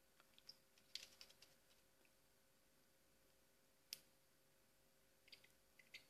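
Faint, quick clicks and taps of European goldfinches pecking at broccoli and shifting on their perches: a flurry about a second in, one sharp tap near the middle, and another flurry near the end, over near silence.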